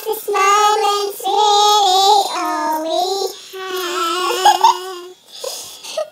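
Teenage girls singing in long held notes with vibrato, breaking off about five seconds in.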